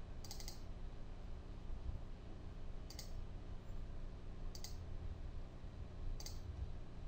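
Computer mouse button clicked four times, each click a quick press-and-release, spaced a second or two apart, over a low steady electrical hum.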